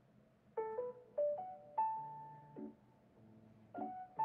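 Background music: a soft piano melody of single struck notes, each fading slowly, over quieter low notes.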